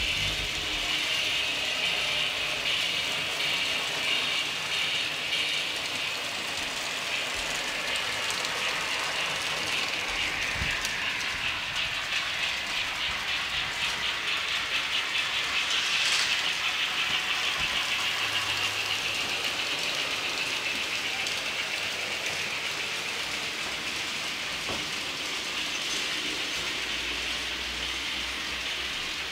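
TT-scale model steam trains with coaches running on the layout's track: a steady rushing hiss of running sound with fine rapid ticking.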